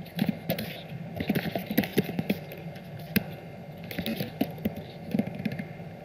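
Typing on a computer keyboard: irregular keystroke clicks, several in quick runs with short pauses between.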